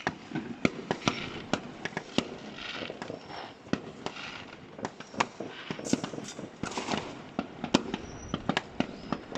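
New Year fireworks going off all around: many sharp bangs at irregular intervals, several a second at times, some louder and closer than others, with stretches of crackling between them.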